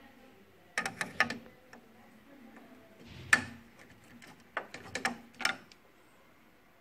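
Parts of an HP LaserJet P3005 printer clicking and knocking as they are handled and fitted during a gear-set replacement: a quick cluster of clicks about a second in, the loudest knock near the middle, then three more clicks.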